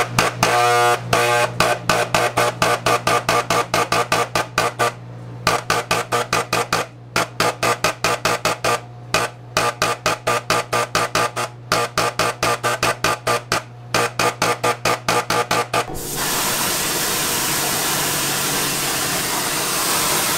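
Spray gun spraying a velvet coat onto chocolate spheres, fired in rapid short bursts of about three to four a second over a steady low hum, then held open as one continuous hiss for the last few seconds.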